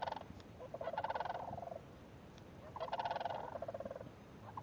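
A flock of sandhill cranes giving rolling, rattling calls: three bouts of about a second each, with short gaps between them.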